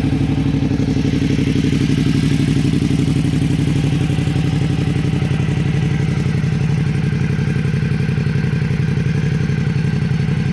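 Suzuki V-Strom 650's 645 cc V-twin idling steadily through an aftermarket WR sport exhaust tip, just after being started. The note is fairly loud and direct, not much muffled.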